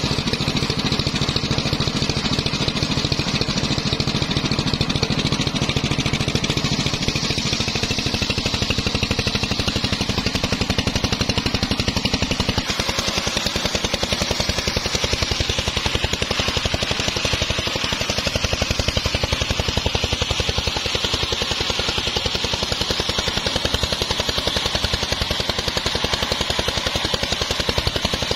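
Engine-driven homemade circular saw bench running, its large blade ripping lengthwise through a teak log, with a steady engine beat under the hiss of the blade in the wood. The sound shifts about halfway through, and the cutting hiss is stronger after that.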